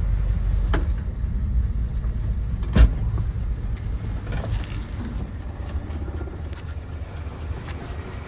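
A 1966 Ford F100 pickup's V8 idling cold on its manual choke, not yet running smoothly. One sharp thump comes a little under three seconds in, with a few faint knocks around it.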